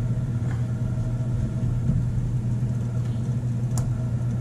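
A steady low mechanical hum, with a single sharp click a little under four seconds in.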